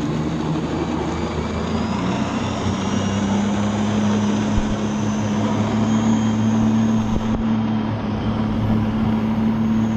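Jet ski engine running steadily at speed, its pitch stepping up slightly about two seconds in.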